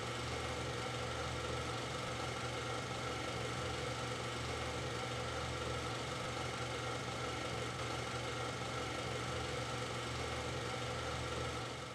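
Steady background hum with hiss, unchanging throughout, fading out near the end.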